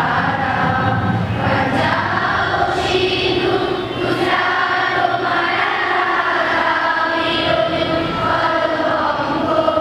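Young girls' voices singing a song together in unison, with a harmonium accompanying them.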